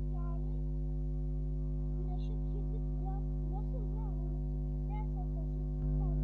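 Steady electrical mains hum, with faint wavering tones coming and going above it.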